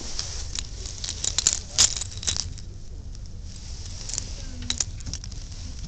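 Metal lanyard clips and keyrings jingling and clicking as they are handled on a display rack, with a cluster of clicks between about one and a half and two and a half seconds in, and a couple more near the end.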